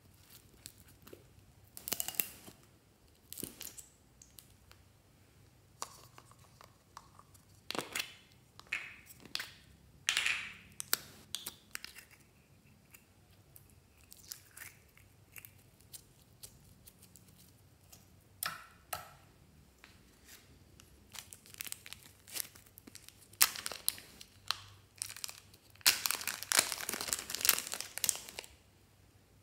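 Scattered clicks, taps and plastic rustles of slime-making supplies being handled: a plastic glue bottle, a glitter jar and its lid. Near the end comes a longer stretch of thin plastic bag crinkling, as foam clay comes out of a zip bag.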